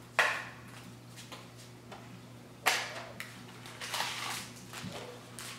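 A snack package being torn open by hand: two sharp rips about two and a half seconds apart, then crinkling of the wrapper.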